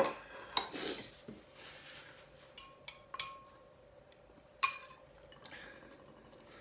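Tableware sounds while eating. A glass bowl is set down on a wooden table with a knock at the start. A few sharp clinks of a metal spoon against glass and dishes follow, the loudest ringing briefly about four and a half seconds in. A faint steady hum runs underneath.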